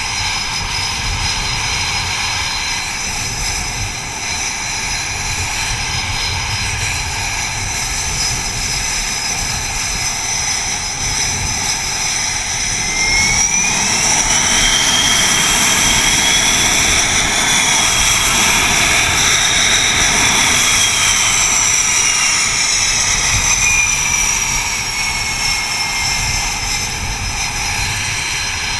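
F/A-18 jet engines running on a carrier flight deck: a steady roar and high hiss, with a rumble that comes and goes underneath. About halfway through, a high whine rises as an engine spools up and the sound grows louder. It holds for about ten seconds, then the whine falls away.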